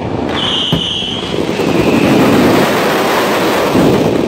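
Fireworks barrage: aerial shells and crackling stars bursting in quick succession, merging into one loud continuous rumble and crackle that starts abruptly and builds. A high whistle rises out of it about half a second in and lasts about a second.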